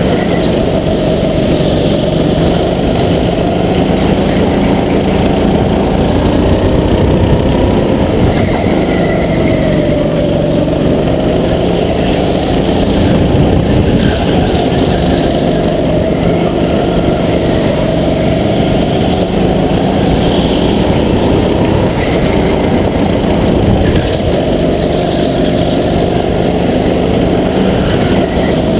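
Racing go-kart's small engine running at speed under the driver, its pitch falling as he lifts for the corners and climbing again on the throttle out of them, over a constant low rumble.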